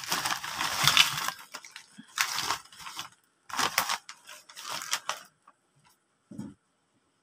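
Round potato crisps poured out of a crinkling snack bag into a ceramic bowl, in four rustling, crackling bursts, followed near the end by a single soft thump.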